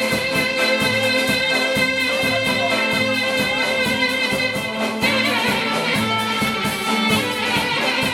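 Live Greek band playing a karsilamas dance tune, led by clarinet over a steady drum beat. The clarinet holds one long note, then breaks into a running melody about five seconds in.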